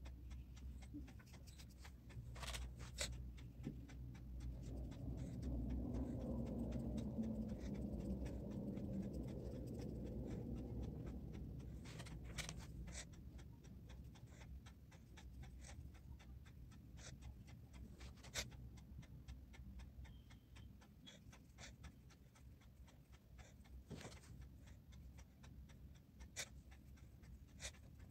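Small round paintbrush dabbing and stroking poster colour onto sketchbook paper: soft scratchy strokes with scattered small ticks and taps. A dull, low background sound swells and fades over several seconds near the middle.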